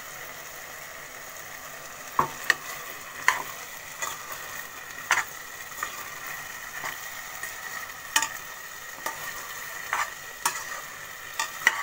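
Chicken sizzling in a pan with a steady hiss while a utensil stirs the green coriander and chilli paste through it. Sharp clacks and scrapes of the utensil against the pan come about once a second from about two seconds in.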